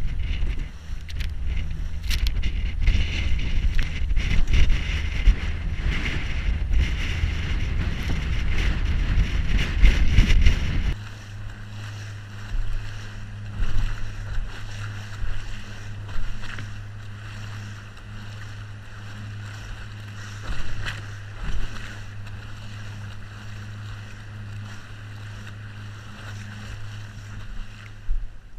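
Small boat's outboard motor running through choppy water. For the first ten seconds or so, heavy wind noise on the microphone and rushing water drown it out. Then the motor settles into a steady hum, with spray slapping against the hull several times.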